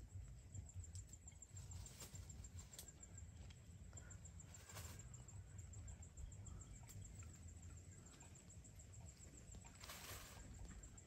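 Near silence: a faint low rumble with a few soft rustles of leafy branches brushing past, the clearest about halfway and near the end.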